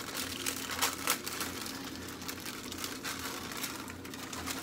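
A sleeve of crackers being crushed by hand inside its paper wrapper: the paper crinkles and the crackers crunch, with a couple of sharper cracks about a second in. The crackers are being broken into crumbs for a casserole topping.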